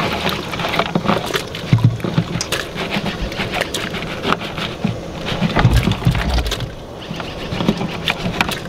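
Live crawdads sliding out of a tipped plastic cooler into a pot of boiling water, their shells clicking and scrabbling against the plastic as they drop in: a dense run of small clicks and patters.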